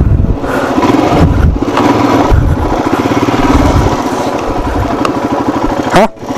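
Royal Enfield Himalayan's single-cylinder engine running steadily while being ridden, with loud low rumbling from the ride mixed in.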